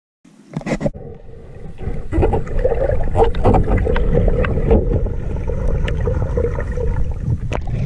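Muffled underwater noise picked up by a submerged camera: a dense low rumble of moving water with scattered clicks and knocks, and a few sharp knocks about half a second in.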